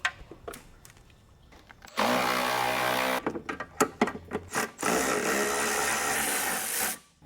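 A power tool runs twice, first for about a second and then for about two seconds, with small clicks and knocks of tools before and between.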